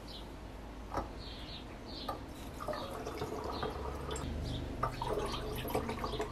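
Water poured from a plastic jug through a metal funnel into a glass demijohn, a steady trickling fill that starts a little under three seconds in, after a couple of light knocks as the jug is lifted into place.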